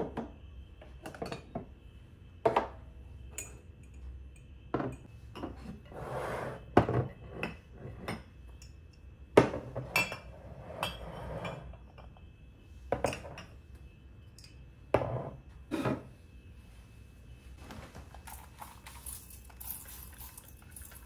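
Glassware and ceramic mugs clinking and knocking as they are lifted off and set down on a wooden cabinet shelf, about fifteen separate knocks over some sixteen seconds. A soft high hiss follows near the end.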